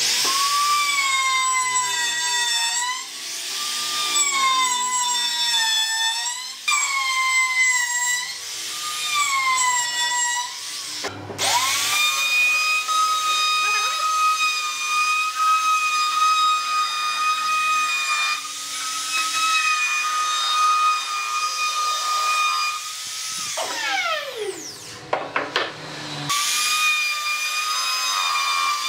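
Electric trim router running at high speed with a high whine, cutting into a wooden beam; in the first stretch its pitch repeatedly dips and recovers as the bit takes load. It cuts out briefly about a third of the way in and spins back up, runs steadily, then winds down with a falling whine and starts up again near the end.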